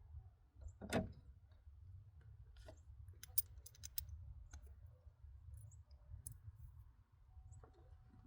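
Scattered clicks and light taps of hand tools and parts being handled while a new spark plug is fitted, with one sharper knock about a second in, over a steady low rumble.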